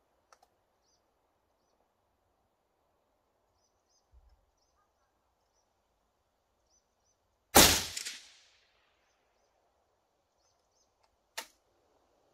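A single loud rifle shot from a scoped hunting rifle about seven and a half seconds in, with a ringing tail that dies away over about a second. A short sharp click follows about four seconds later, with faint bird chirps in between.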